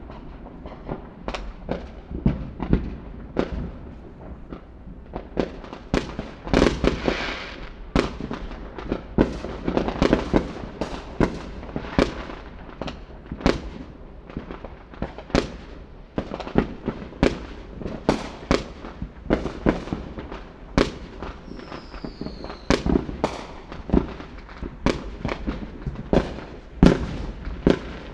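Fireworks going off: a dense, irregular string of bangs and pops of varying loudness over a low rumble, with a short falling whistle about three-quarters of the way through.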